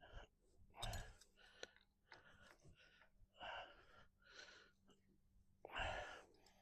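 Faint breaths and sighs from someone straining, about six of them, the strongest about a second in and near the end, with a light click about a second and a half in.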